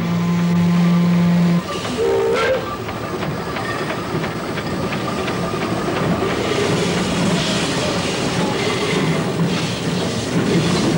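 A deep steamer's whistle sounds steadily and cuts off about a second and a half in. A short higher whistle follows, then the steady hiss and clatter of a steam locomotive.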